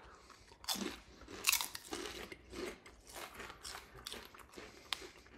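Sea salt and cracked pepper chips being bitten and chewed, with a run of irregular crunches, the loudest about a second and a half in.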